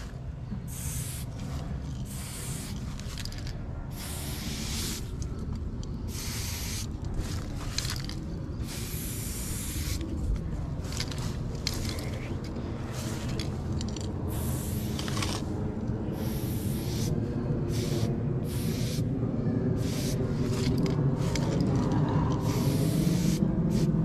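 Paint being sprayed in many short hissing bursts of uneven length, with irregular gaps between them, over a steady low background rumble that slowly grows louder.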